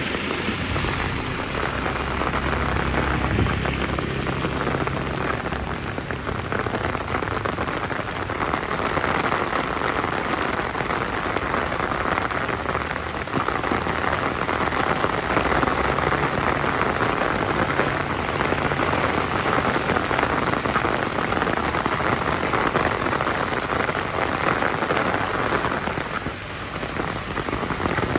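Steady rain falling, an even hiss of drops on the surfaces around.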